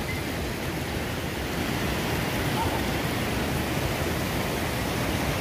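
Waterfall, its water rushing steadily.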